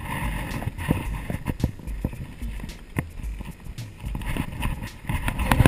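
Mountain bike rolling down a bare rock slab, its frame and parts rattling with irregular sharp knocks as the tyres hit bumps in the rock, over a low wind rumble on the handlebar-mounted camera's microphone.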